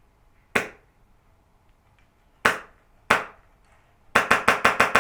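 Airsoft gun firing close by: three single shots a second or two apart, then a rapid burst of about six or seven shots near the end.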